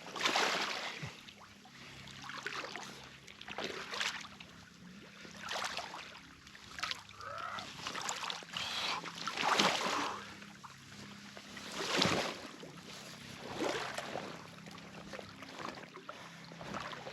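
A person wading through deep water, a slosh and swish with each stride, roughly every one to two seconds.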